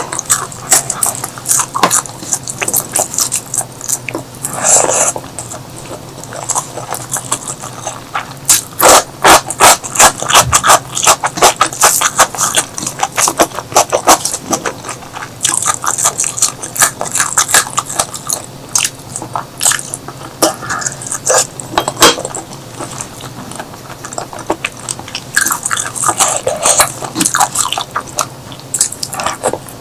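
Close-miked eating sounds: chewing and biting with many sharp, crisp clicks and crunches, thickest about a third of the way in.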